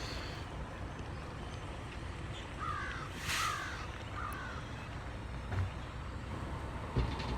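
A bird calling three times in quick succession, each call short and falling in pitch, over a steady low background hum.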